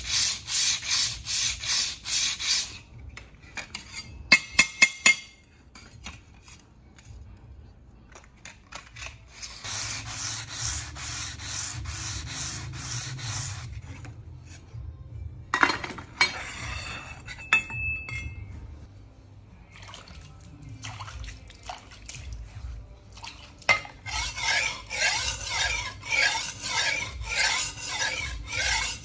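Steel chopping-knife blade stroked back and forth by hand over a sharpening stone in quick, even rhythmic passes, with pauses between runs; a few sharp clicks about four to five seconds in. This is the final sharpening of the edge.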